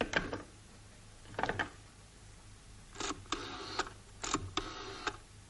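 Desk telephone being handled and dialled: clicks of the handset and cradle, then two short mechanical whirring runs of the dial mechanism about three and four and a half seconds in.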